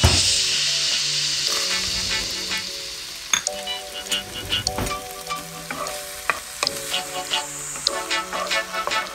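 Chicken and mixed vegetables frying in a nonstick pan. A loud sizzle right at the start, as the vegetables go in, fades over the next few seconds, while a wooden spoon stirs and clicks against the pan. Background music plays underneath.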